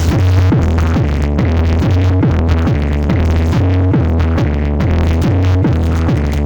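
Electronic dance music with a heavy, repeating bass line, a little over two bass notes a second, at a steady beat.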